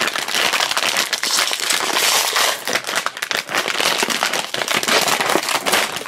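Plastic blind bag crinkling and crackling as hands handle it, a dense, irregular crackle throughout.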